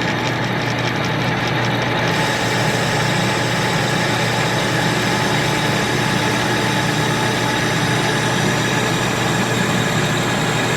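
Victor 1640 manual lathe running steadily, its 7.5-horsepower motor fed by a rotary phase converter that gives a steady electrical humming. A higher hiss joins about two seconds in.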